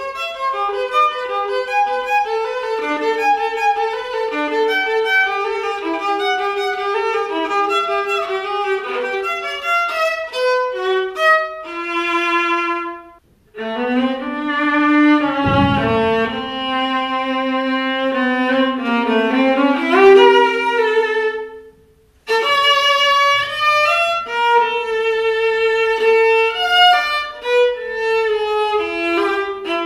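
Solo viola played with the bow: a melody of separate notes, some with two strings sounding together, with brief pauses about thirteen seconds in and again about twenty-two seconds in.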